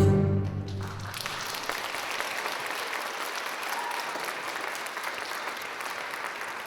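Music ends on a final chord about a second in, and a theatre audience breaks into steady applause.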